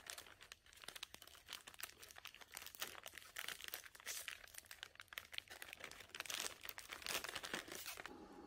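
Gold foil wrapper of a chocolate pack being crinkled and torn open by hand: a dense run of crackling that stops shortly before the end.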